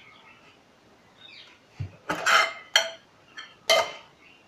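Metal kitchenware clinking: a dull knock about two seconds in, then several sharp clinks and knocks with a brief metallic ring, like a steel spoon and pans handled on a counter.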